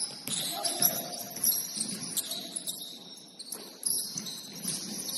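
Basketball shoes squeaking on a gym court floor in a string of quick, high chirps, with a few sharp knocks of the ball bouncing or feet landing.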